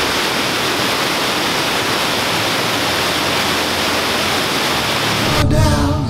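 Tall waterfall: a steady rush of falling water. Guitar music comes in about five and a half seconds in.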